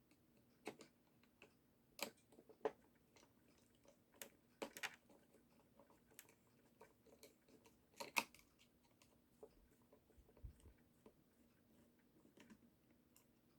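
Scattered faint clicks and taps of a small screwdriver and screws on the plastic gearbox housing of a dancing toy's top mechanism as its screws are taken out. The sharpest clicks come about two seconds in and again near eight seconds, over a faint steady hum.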